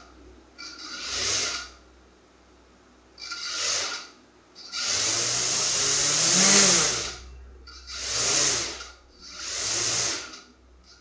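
Quadcopter motors and propellers spinning up and down in five throttle bursts, each a rising then falling whir; the longest and loudest runs from about five to seven seconds in.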